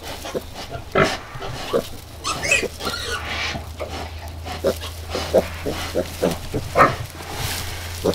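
Pigs grunting in short, repeated grunts, with a few louder squeals, over a steady low hum.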